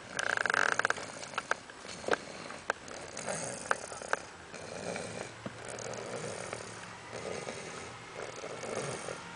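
Snoring in sleep: a loud rasping snore in the first second, then softer noisy breaths rising and falling every second or so, with scattered small clicks.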